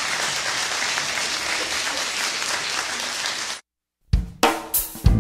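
Audience applauding, cut off abruptly about three and a half seconds in. After a brief silence, keyboard chords and drum hits start near the end.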